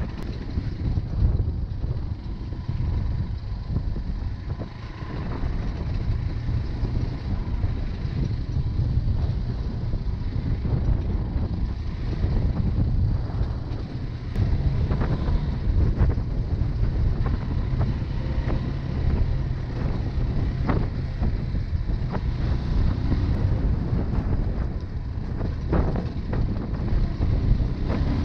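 Single-cylinder 250cc trail motorcycle engine running at a steady cruise on a gravel road, with wind buffeting the microphone. A few sharp knocks come in the second half.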